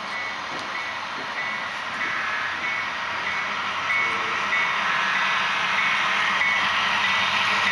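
HO scale model diesel train approaching, its running noise growing steadily louder, with a short ringing tone repeating about every two-thirds of a second.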